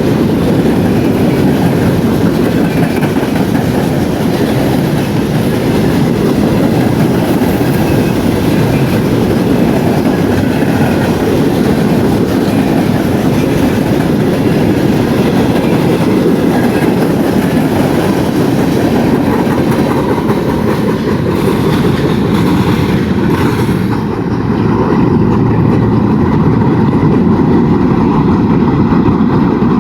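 Empty coal hopper cars of a freight train rolling past, a steady loud rumble with wheels clacking over the rail joints. Near the end the higher hiss drops away while the rumble goes on.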